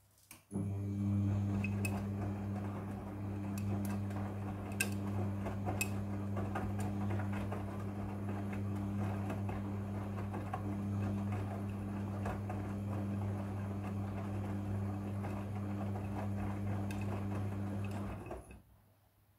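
Front-loading washing machine drum turning in the wash cycle: a steady motor hum with the wet clothes sloshing and knocking in the drum. It starts suddenly and stops about a second before the end.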